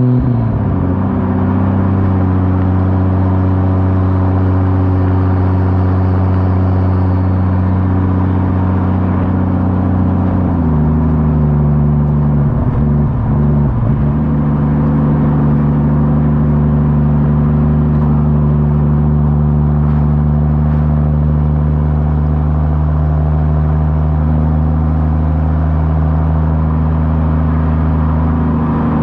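Ford FG Turbo's turbocharged straight-six running through a 4-inch exhaust with the rear muffler deleted, a steady deep drone while cruising. Its pitch drops just at the start, then steps up about ten seconds in and wavers briefly before settling again.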